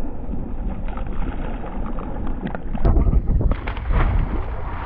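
Wind buffeting the microphone over open-ocean chop, with water splashing against the side of a kayak as a released kawakawa tuna kicks away, a few sharper splashes coming in the second half.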